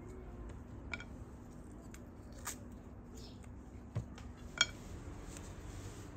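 Ripe apricots being split open by hand and their pits pulled out: soft handling sounds with a few light clicks, the sharpest a short clink about four and a half seconds in.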